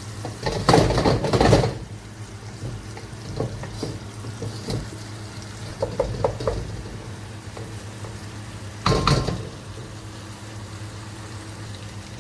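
A spoon scraping and knocking against a cooking pan as a tomato, capsicum and onion mixture is stirred, in two loud spells about half a second in and about nine seconds in, with light clinks between, over a steady low hum.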